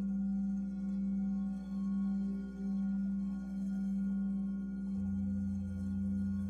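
Ambient meditation background music: a steady low drone with ringing overtones, swelling gently about once a second. A deeper sustained note comes in about five seconds in.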